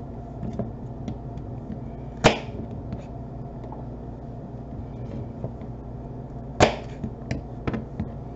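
Celery stalks being cut with a knife on a metal baking sheet: two sharp cracks about four seconds apart, then a few lighter taps near the end.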